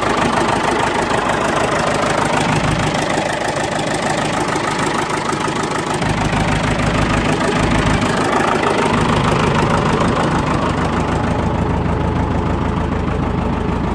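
International backhoe's diesel engine running steadily, warming up shortly after a cold start.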